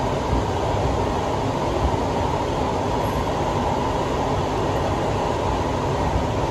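Steady running noise inside a Siemens C651 MRT carriage in motion: wheels on the rails and the car body rumbling, with a few light knocks.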